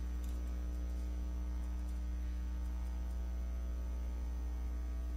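Steady low electrical mains hum with a ladder of higher overtones, unchanging throughout, with nothing else audible.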